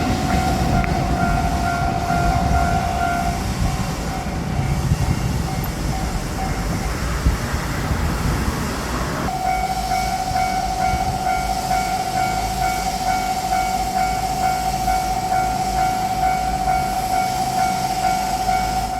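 Japanese level-crossing bell ringing steadily in a rapid kan-kan rhythm while a JR Shikoku 7200 series electric train rumbles over the rails. The train noise fades and the bell rings on, coming back louder about nine seconds in.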